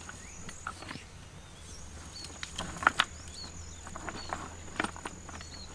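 Footsteps on loose stones: scattered knocks and scrapes of rocks underfoot walking down a rocky slope, the loudest a pair of knocks about three seconds in. Behind them an insect trills steadily on one high note, and a bird chirps now and then.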